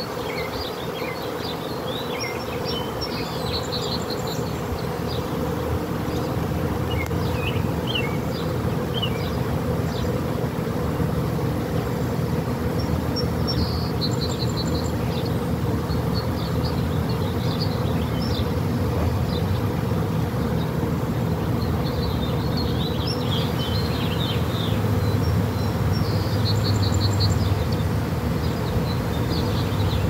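Honeybee swarm buzzing: the steady, dense hum of many bees flying around the swarm cluster, slowly growing louder.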